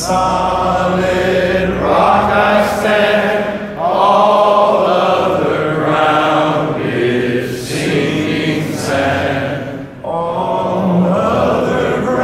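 Large crowd of men singing a slow worship chorus together, in long held phrases with short breaths between them.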